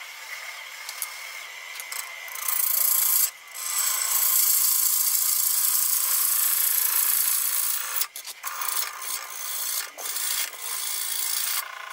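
A bowl gouge cutting the outside of a spinning Fijian mahogany bowl blank on a wood lathe: a rough, hissing shear of wood being peeled away. It runs in a long pass with one short break, then breaks off and comes back in shorter passes. A thin steady whine sounds under it in the first few seconds.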